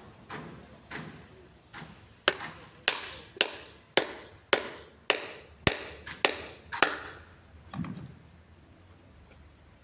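A hand hammer striking repeatedly at about two blows a second: a few lighter taps, then about nine hard blows, and a duller knock near the end before it stops.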